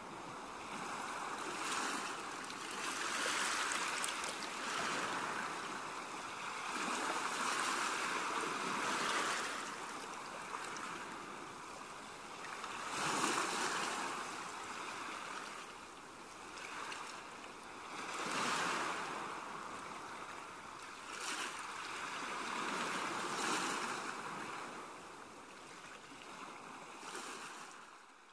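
Coloured pencil shading on drawing paper: a scratchy hiss that swells and fades in passages every few seconds.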